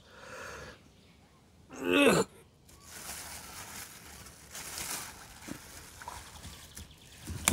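Pond water sloshing and splashing as a plastic bag holding live caught fish is hauled up out of the water, with a short grunt of effort about two seconds in.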